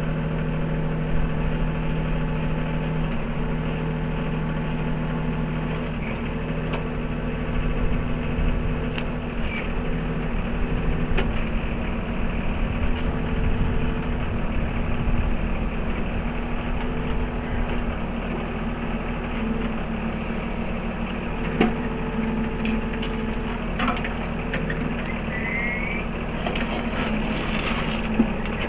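Mahindra 3616 compact tractor's diesel engine running steadily while it powers the 3720 backhoe digging, with a few short sharp knocks scattered through.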